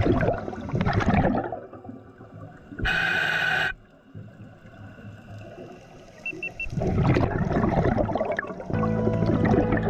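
Scuba diver breathing through a regulator underwater: a rush of exhaled bubbles, a short hiss of inhalation about three seconds in, then another long bubble exhalation. Near the end a steady low hum of several tones comes in.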